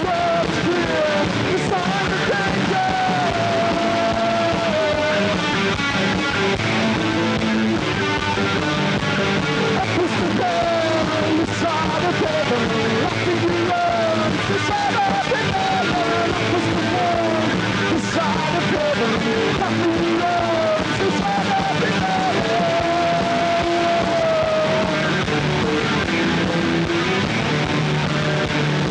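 Live rock band playing a post-punk song: electric guitar through amplifiers, with drums. A wavering melodic line comes back every few seconds over a dense, steady band sound. The recording is a muddy, poor-quality tape of the concert.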